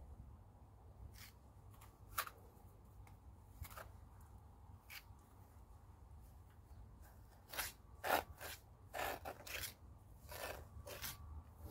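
A steel pointing trowel scrapes gritty lime mortar off a hawk and presses it into brick joints. The short scrapes come one at a time at first and in quick runs over the last few seconds.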